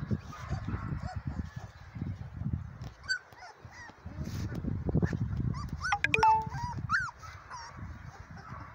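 Three-week-old German Shepherd puppies whimpering and yipping in short high rising-and-falling cries: a couple about three seconds in, then a cluster between six and seven seconds. A low rumbling noise runs underneath.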